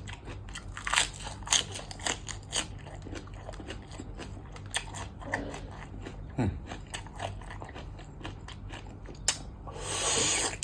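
Close-miked mukbang eating: repeated crunchy bites and chewing of som tam with raw blue crab and fresh okra, with a louder burst of noise near the end.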